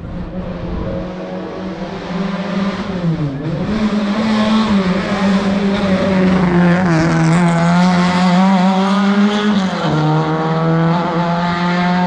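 Historic rally car engine held at high revs as the car approaches and grows louder, with a brief dip and recovery in pitch about three seconds in and a step down in pitch near ten seconds in.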